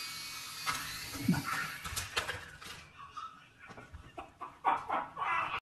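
Small toy drone's rotors whirring for about three seconds, then giving way to a few short clicks and clatters.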